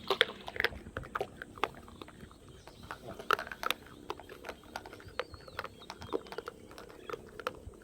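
Monkeys eating at close range: irregular crunching and clicking as they bite and chew their food, with a faint high warbling call about midway.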